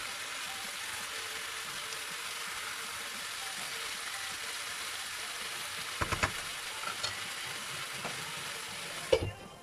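Chicken pieces sizzling in oil in a non-stick frying pan, a steady hiss, while being stirred with a wooden spatula. A few sharp taps of the spatula on the pan come about six seconds in, and a louder knock near the end, after which the sizzling drops away.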